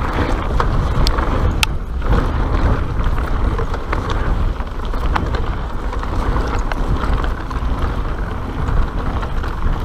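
Mountain bike descending a rocky dirt trail at speed: wind buffeting the microphone over the rumble of knobby tyres on dirt and loose stones, with the bike rattling and occasional sharp clicks and knocks from stones and the frame.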